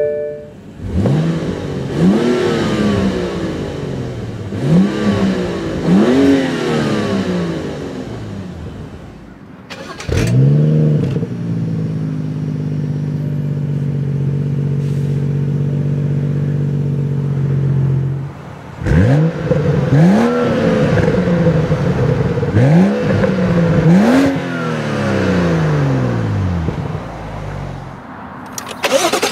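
BMW M235i's turbocharged 3.0-litre straight-six, heard at the exhaust, catching with a rising flare about a second in. The throttle is then blipped three times, each rev climbing and dropping back. It settles into a steady idle in the middle, then is blipped four more times near the end.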